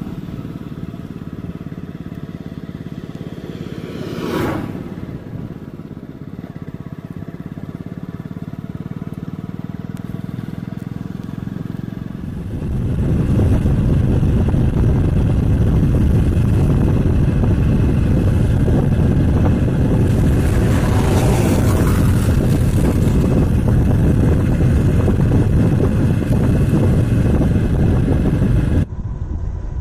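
Single-cylinder Hero HF Deluxe motorcycle engine running steadily while riding along. About halfway through, a loud rush of wind on the microphone takes over and largely covers the engine.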